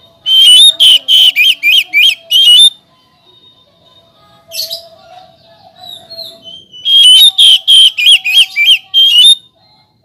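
Oriental magpie-robin singing: two loud runs of rapid, repeated whistled notes, about eight notes each, with a single soft note between them.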